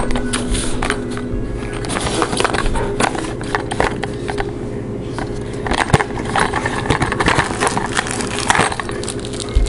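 Cardboard box and paper packaging handled by hand, irregular rustling and scraping with small clicks and clinks as a fisheye lens attachment is taken out, over a steady low hum.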